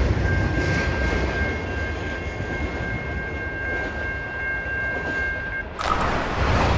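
Intermodal freight cars rolling past on the rails: a steady low rumble with a steady high-pitched whine over it. Near the end the whine stops and a brief whoosh follows.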